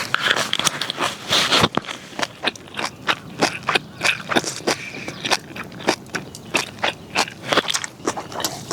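Close-up chewing of a crunchy mouthful: a wrap of grilled baby octopus and pork belly with flying fish roe, perilla leaf and pickled radish, making irregular crisp clicks and pops several times a second.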